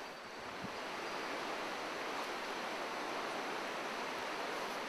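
Steady rushing of a flowing trout river, an even wash of water noise.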